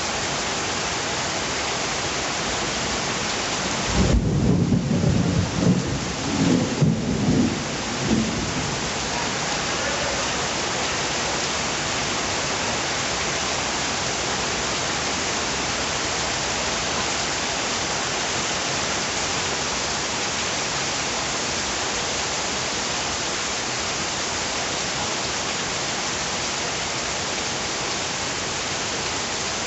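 Steady rain falling. About four seconds in, a loud deep rumble of thunder breaks in and rolls in several swells for about four seconds before the rain alone continues.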